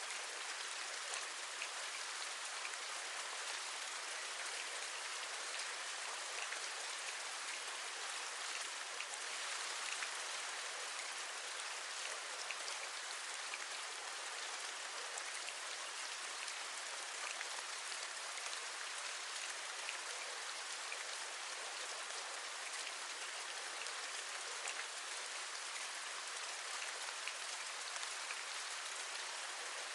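Steady rain, a constant even hiss dotted with many small drop ticks.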